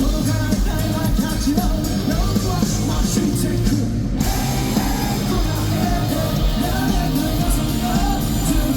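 Live rock band performance recorded from the audience: a rock song on electric guitars, bass and drums with a male lead singer, and a brief break in the top of the sound about four seconds in.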